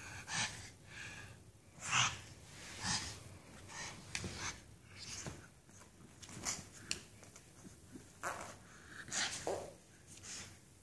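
Pug snorting and breathing noisily in short, irregular bursts.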